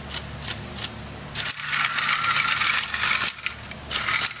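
OWI Kingii robot frilled lizard hissing through its small built-in speaker, set off by a hand in front of its sensor. It gives three short hisses, then one long hiss of about two seconds, and a further short hiss near the end.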